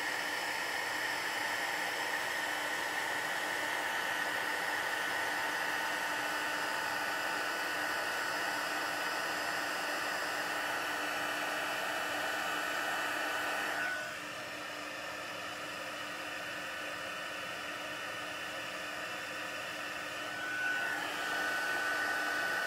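Embossing heat gun blowing steadily with a thin high whine from its fan, heating white embossing powder on a stamped greeting. It gets somewhat quieter about two-thirds of the way through and louder again near the end.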